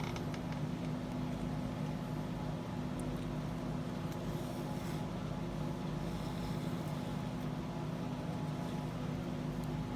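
Whole-house fan running: a steady drone with a low, even hum.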